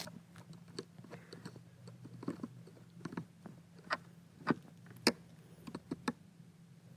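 Irregular light clicks and taps from small parts being handled during a car key repair, the loudest about five seconds in, over a faint steady hum.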